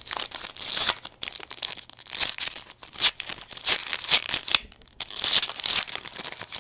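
A trading-card pack wrapper being torn open and crinkled by hand, in a run of uneven ripping and rustling bursts that stop abruptly near the end.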